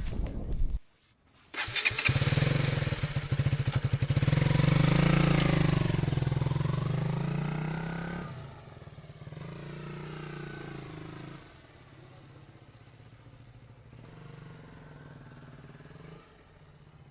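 Motorcycle engine. After a brief gap it comes in loud and revs with rising and falling pitch as the bike pulls away, then fades off from about eight seconds in.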